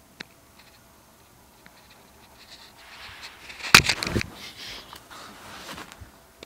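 Handling noise from a phone camera being moved around: a small click, then rustling and scraping that builds to a loud burst of scrapes and knocks about four seconds in, then softer rustling.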